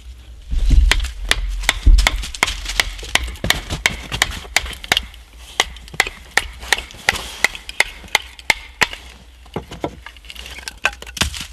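Large knife chopping into an upright wooden pole resting on a stump block. It makes sharp wooden knocks at about three a second. The first two strokes near the start are the heaviest, with a low thud, and the strokes thin out near the end.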